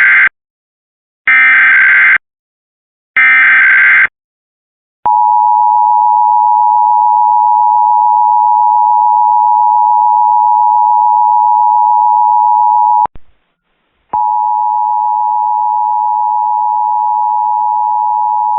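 Emergency Alert System test signal off broadcast radio: three one-second bursts of the SAME digital header, a second apart, then the 853/960 Hz two-tone attention signal held steady for about eight seconds. After about a second of silence, another alert tone starts, slightly wavering.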